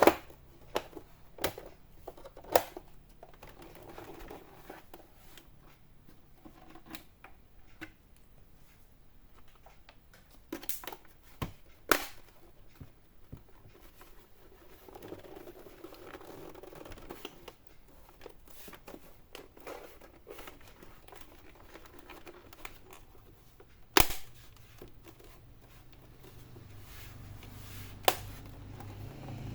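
Plastic back cover of an HP all-in-one PC being pressed shut, its clips snapping into place with sharp clicks: several in the first three seconds, two around twelve seconds in, and single loud ones about 24 and 28 seconds in, with quieter handling and rustling between.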